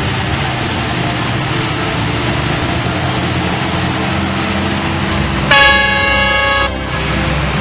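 Heavy harvest machinery running with a steady even noise; about five and a half seconds in, a vehicle horn sounds once, a single steady tone lasting just over a second.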